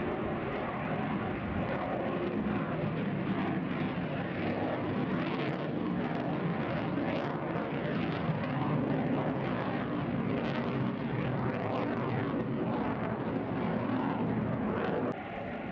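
Aircraft engine noise, a dense steady rushing that shifts slowly, dropping off abruptly near the end.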